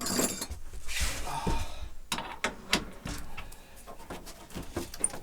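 Heavy breathing from someone working in a cramped space, with a series of short metal clicks and knocks from a spanner working on a sink tap fitting.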